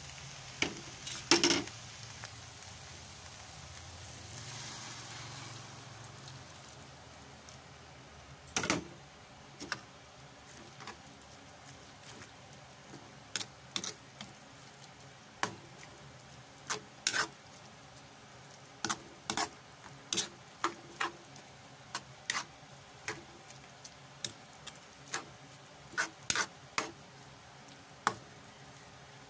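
Spatula stirring and tossing noodles in a wok, knocking and scraping against the pan in irregular sharp clicks about once a second. A soft sizzle comes in the first few seconds as the water just added heats in the pan.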